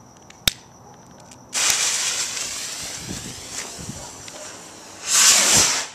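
Black Cat crackling rocket launching: a sharp click, then a sudden loud whoosh that fades as the rocket climbs, and near the end a loud burst of crackling about half a second long that is really loud. Crickets chirp steadily underneath.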